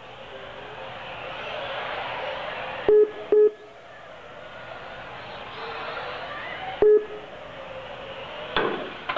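Small electric 1/18-scale RC cars running on carpet, their whine swelling and fading as they pass. Three short electronic beeps come from the lap-counting system, two close together about three seconds in and one near the seventh second.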